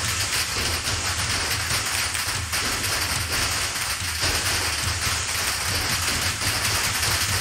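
Surface noise from an old analog recording being played back: a steady hiss with a faint crackle and a low mains hum, with no music yet.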